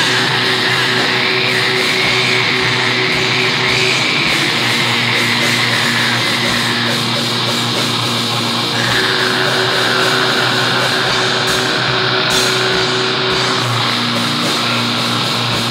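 Raw black metal from a lo-fi cassette demo: harshly distorted electric guitars holding long chords in a dense, noisy wall of sound, shifting chord about every four to five seconds.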